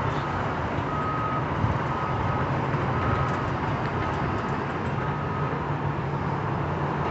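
Reversing alarm on heavy demolition machinery beeping about once a second over a steady diesel engine rumble, with the beeps pausing briefly near the end.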